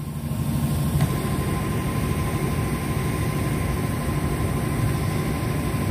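Toyota Fortuner engine running steadily, a low even rumble with a faint steady high whine over it.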